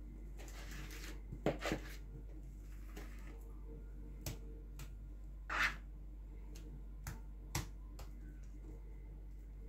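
Metal spoon knocking and scraping as cake batter is scraped out of a mixing bowl and spread in a foil baking tin: a handful of separate clicks and knocks, the loudest about one and a half and five and a half seconds in.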